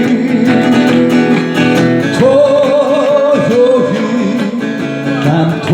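Strummed acoustic guitar with a singing voice, holding a long note with vibrato about two seconds in.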